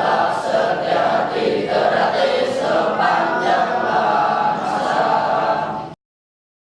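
A group of voices chanting in unison, cutting off abruptly about six seconds in.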